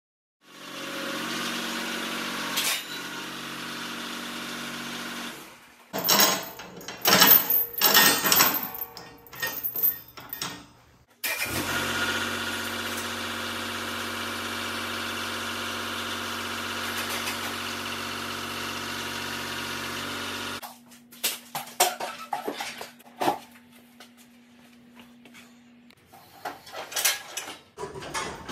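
A compact tractor's engine running steadily in stretches, with a spell of loud, irregular metal clanks and knocks from the chain and pallet forks as it lifts a riding mower. Near the end come quieter clicks and knocks.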